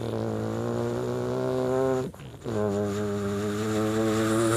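A man imitating an auto-rickshaw engine with his voice: a steady buzzing drone held in two long stretches with a brief break about two seconds in, wavering near the end.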